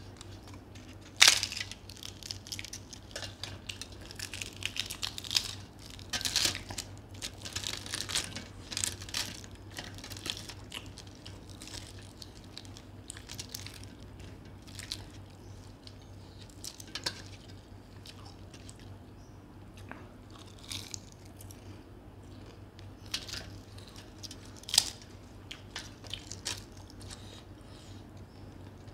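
Close-miked eating: a man chewing and biting puri and chicken curry eaten by hand, with wet mouth smacks and short clicks, busiest in the first ten seconds and sparser after. A sharp louder click about a second in and another about 25 seconds in.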